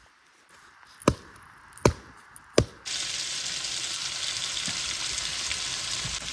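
Three sharp knocks about three-quarters of a second apart. Then, almost three seconds in, a steady sizzling sets in abruptly, as of food frying in a hot pan.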